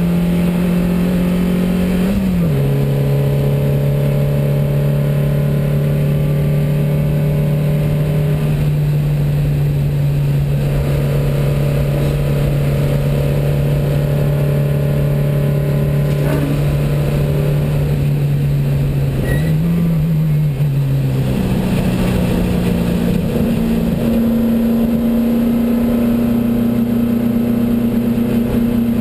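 The 2270cc flat-four engine of a 1972 Porsche 914 IMSA race car, heard loud from inside the cabin on track. The pitch flicks up and settles lower about two seconds in, then holds steady for a long stretch. In the last third it steps up twice to a higher pitch.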